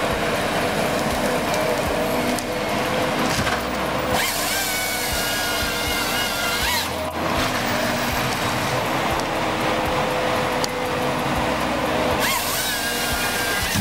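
Ponsse forest harvester's engine and hydraulics running steadily, with the harvester head's chain saw cutting through a tree trunk twice. A long cut starts about four seconds in and lasts about two and a half seconds; a shorter cut comes near the end. Each cut rises quickly in pitch as the saw starts.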